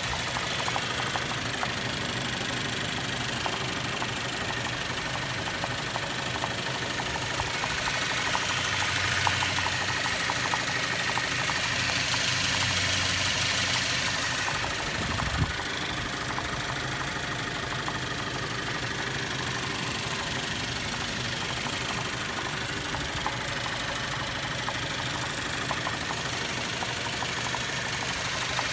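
Cadillac ATS 2.0L turbocharged four-cylinder engine idling with a steady knock, the sign of a suspected piston failure; the engine shakes at idle. It gets louder for several seconds about a third of the way in, with a single thump just past halfway.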